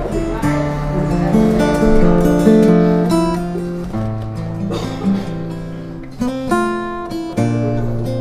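Steel-string acoustic guitar played fingerstyle: plucked bass notes under a ringing melody line, with two chords struck in the second half.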